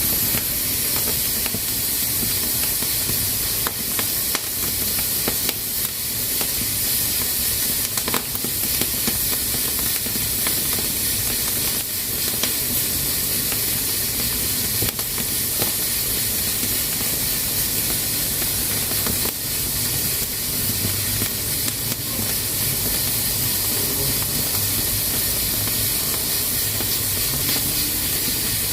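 Pressure cooker hissing steadily as steam escapes from its valve: the pot is up to pressure. A few sharp clicks sound now and then over the hiss.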